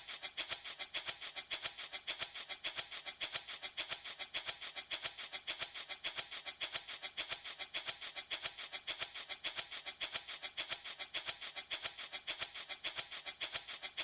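Handmade wooden baby rattle shaken in a steady, even rhythm, a bright shuffling rattle with a sharp stroke on every shake.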